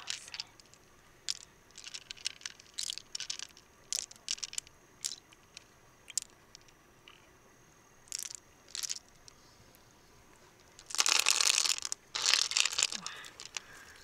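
Freshwater mussel shells being handled and scraped: scattered short clicks and scratches, then two longer scrapes near the end.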